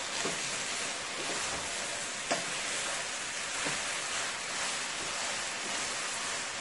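Rice, sausage and vegetables sizzling steadily as they fry in a pot, stirred with a wooden spatula that scrapes and taps the pot a few times.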